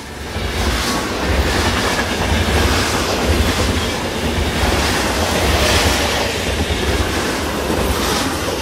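A train running on rails: a loud, steady clatter over a deep low rumble, swelling up in the first second.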